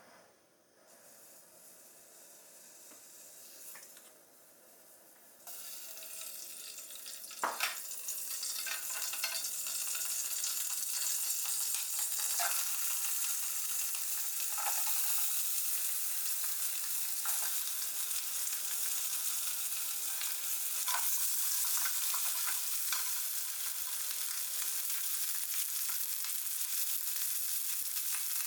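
Food frying in an aluminium mess tin over a gas burner: after a few seconds of faint hiss the sound grows louder, a sharp clack comes about seven seconds in, and then a steady sizzle runs on with occasional small taps of stirring.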